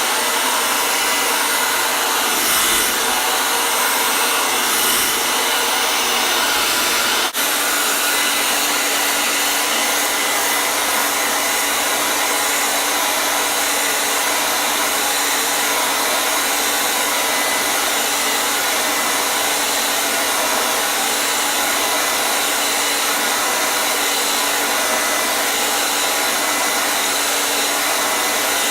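Hair dryer running steadily: an even rush of blown air with a faint motor hum. About seven seconds in there is a momentary dip, after which a steady low hum tone sits under the noise.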